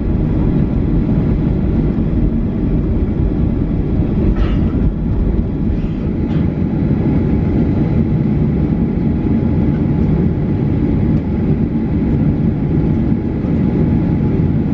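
Cabin noise of a Boeing 737-800 taxiing: a steady low rumble from its CFM56 engines at low thrust, with a faint steady whine that comes in about halfway.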